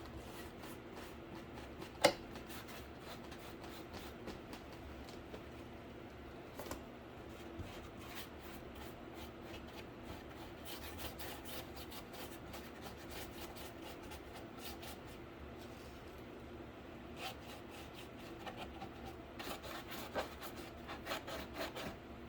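Paintbrush strokes scratching and rubbing across a cardboard PC case, in a run of short strokes that grow busier near the end, with one sharp click about two seconds in.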